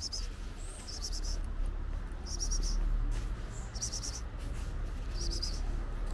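Insect chirping: five short, pulsed, high-pitched chirps at an even pace, about one every second and a half, over a steady low rumble.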